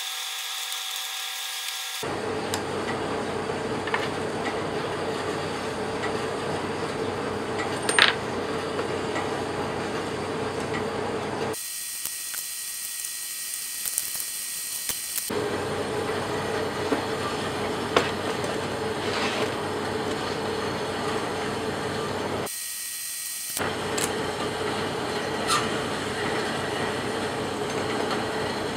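Hand tools scraping and digging through oil-bonded casting sand as a mould is broken open, with scattered sharp knocks, the loudest about 8 and 18 seconds in, over a steady background hiss with a low hum.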